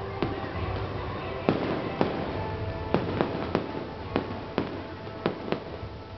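Aerial fireworks going off: about ten sharp bangs at irregular intervals, with music playing in the background.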